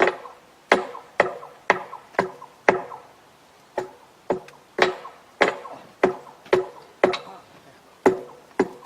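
Repeated hammer blows on steel, about two a second in runs with short pauses, each with a brief ringing tone.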